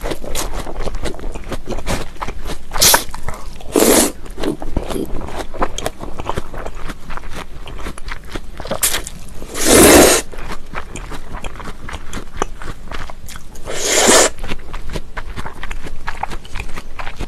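Close-miked eating of cold raw-fish soup with thin wheat noodles: steady wet chewing with crunchy bites, broken by several loud noodle slurps, the loudest about ten seconds in and others at about three, four and fourteen seconds.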